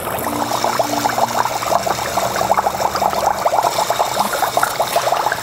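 Dry ice bubbling hard in a bowl of warm water: a dense, steady burble of fast, irregular bubble pops as the ice gives off fog.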